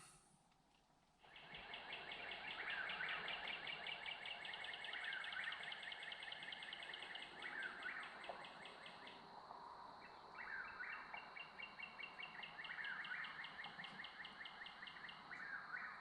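Woodland ambience before dawn: a steady, high, pulsing insect trill, with a bird calling over it about every two and a half seconds, starting after about a second of near silence.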